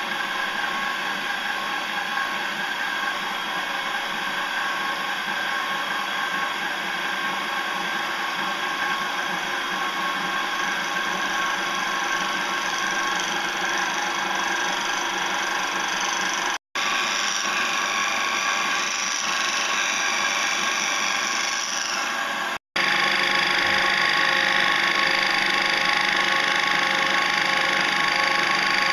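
Small benchtop metal lathe running steadily with a motor whine, its tool turning down a white plastic rod. The sound cuts out twice for a split second, and after the second break it is louder, with more cutting hiss.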